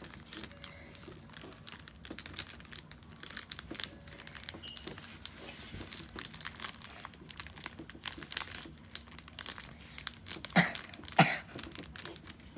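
Soft crackling and rustling from fingers handling and kneading a small piece of sticky putty candy close to a clip-on microphone. Near the end come two louder rustling bursts about half a second apart.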